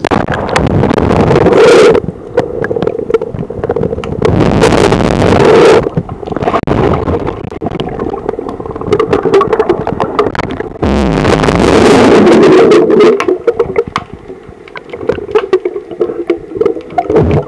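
Water heard through a camera microphone held below the waterline: loud, muffled sloshing and gurgling that comes in swells, with a steady crackle of sharp clicks. It starts abruptly as the camera goes under.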